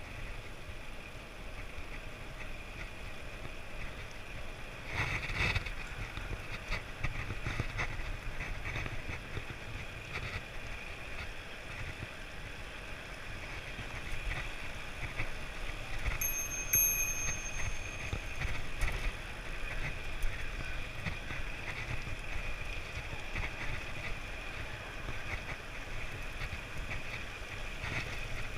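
Road bike riding along asphalt, heard from a handlebar-mounted camera: a steady rush of wind and tyre noise, with a brief high ring about halfway through.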